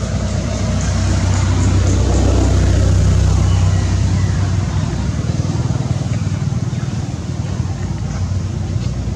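A motor vehicle's engine running, a low rumble that swells to its loudest about three seconds in and then slowly fades, as if driving past.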